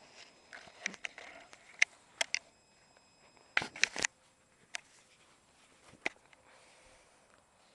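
A small dog sniffing and scuffling as it noses a ball about on grass, with several sharp knocks close to the microphone, loudest at about two seconds and again around three and a half to four seconds in.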